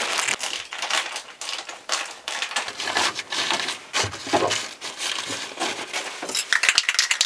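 Plastic tarp sheeting crinkling and rustling as it is handled, in irregular crackly bursts, with a quick run of sharp clicks near the end.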